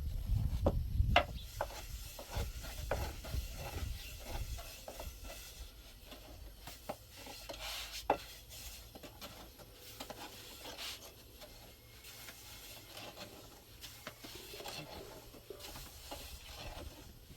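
Scattered light clicks and knocks with faint scraping, like things being handled, over a low rumble that fades out after about four seconds.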